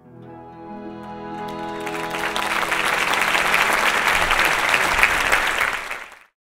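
Orchestra holding the song's final chord, with audience applause swelling over it from about a second and a half in until it fills the sound. Both cut off suddenly near the end.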